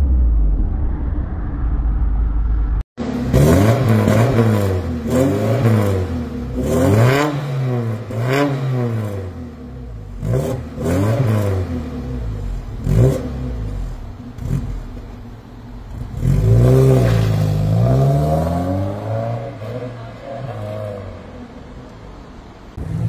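1987 Alfa Romeo Spider 2000's twin-cam four-cylinder through a straight pipe in place of the rear muffler, with long 1965–74 exhaust manifolds. After a few seconds of low rumble from inside the open car, the engine is revved again and again to about 5000 rpm, then the car pulls away at about half throttle and the sound fades as it drives off.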